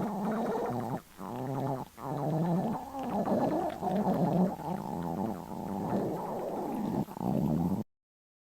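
A hungry, empty stomach growling: long gurgling rumbles that waver in pitch. There are short breaks about a second and two seconds in, and the sound cuts off suddenly near the end.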